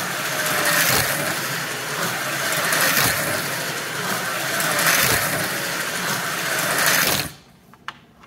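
Wizard Storm Extreme HO slot car running laps on a plastic track: a steady electric motor whine with tyre and pickup noise, swelling about every two seconds as it comes round. It stops suddenly about seven seconds in when the throttle is released, leaving a couple of faint clicks.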